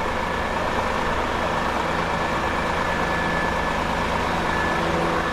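Steady drone of idling fire-truck diesel engines: a low engine hum with a thin, high, constant whine over it.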